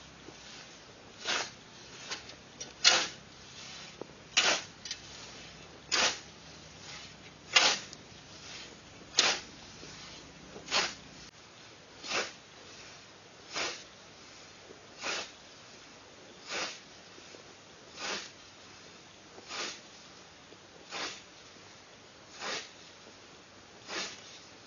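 Scythe blade swishing through tall dry grass in a steady rhythm of mowing strokes, about one every one and a half seconds, the first several louder than the rest.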